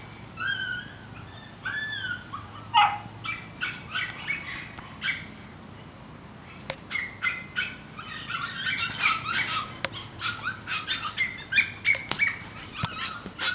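Several young dogs in kennel runs yapping and whining. There are a few drawn-out high whines in the first couple of seconds, then a run of short, sharp yaps that gets busier past the middle.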